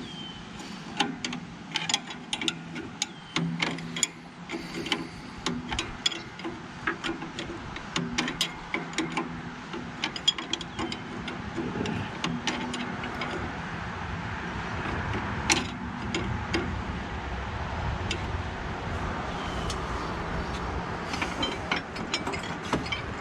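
A ratchet wrench clicking in quick runs of sharp clicks while the John Deere skidder's winch brake is being adjusted by hand. A steadier low rumble builds in the second half.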